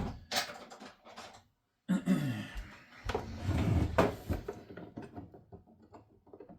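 Hands prying at a fitting on top of an instant hot-water boiler with a pick: scattered clicks, knocks and scraping of tool on plastic and metal, busiest about two to four seconds in, with a brief cut to dead silence before that.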